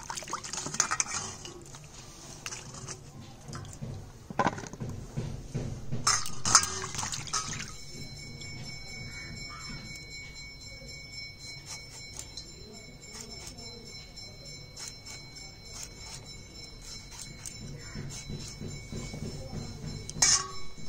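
Water sloshing and splashing in short bursts: at the start, about six seconds in, and again near the end. From about seven seconds in, a soft steady chord of high held tones, like background music, runs under it and stops near the end.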